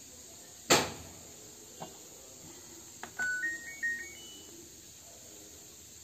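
A sharp knock about a second in, a few light clicks, then about three seconds in the LG front-load washing machine's short power-on jingle: a few electronic beeps stepping up in pitch as the machine switches on.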